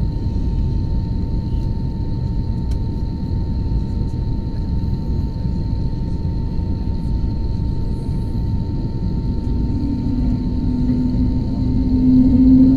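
Airbus A321 jet engines heard from inside the cabin while taxiing: a steady low rumble with a thin steady whine above it. A low hum swells near the end, the loudest moment.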